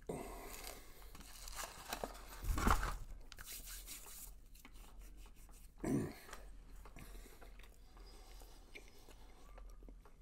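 A man biting into and chewing chicken McNuggets close to the microphone. The loudest stretch comes about two and a half seconds in, with another short, loud sound near six seconds, then quieter chewing.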